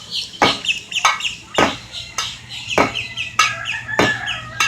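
Cockatoo making short chirping and squawking calls, broken by sharp clicks every half second or so.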